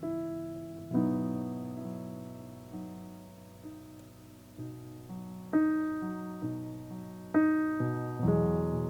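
Calm, slow solo piano music: single notes and chords struck every second or two, each left to ring and fade.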